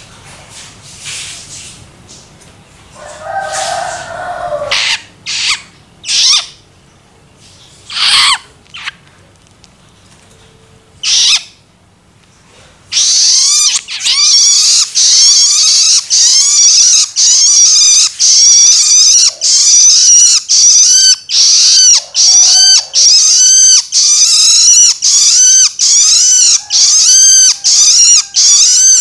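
Young long-tailed shrike (cendet) giving its begging calls: a few scattered calls at first, then about halfway through a loud, steady run of repeated calls, about two a second.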